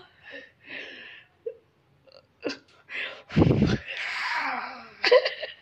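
A person laughing in short, broken bursts, the loudest about three and a half seconds in.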